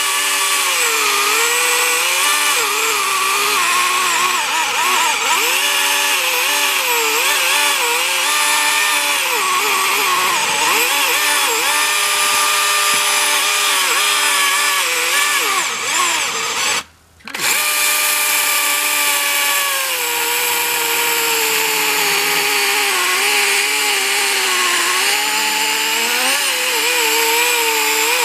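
Husqvarna 120i battery-powered chainsaw cutting into a tree trunk: a steady electric motor whine that sags in pitch as the chain bites into the wood and rises again as it eases off. It stops for a moment partway through, then starts up again.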